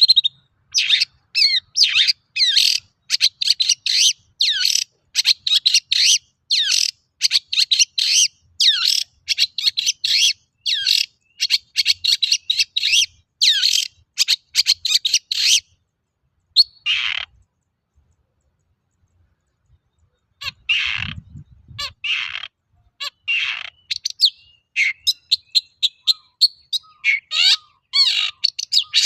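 Long-tailed shrike (cendet) singing hard: a fast run of short, sharp notes, about two a second. The song breaks off for a few seconds past the middle, then resumes with denser, more varied chattering near the end.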